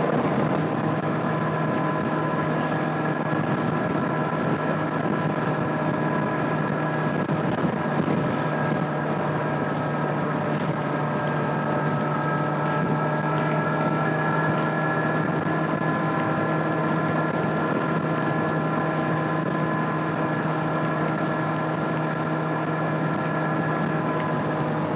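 2025 Kawasaki Z900's inline-four engine through its stock exhaust, cruising at a steady engine speed with the note holding one pitch, and wind noise on the microphone.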